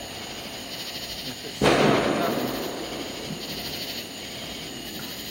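A single consumer firework explodes with a sudden loud bang about a second and a half in, then dies away over a second or so.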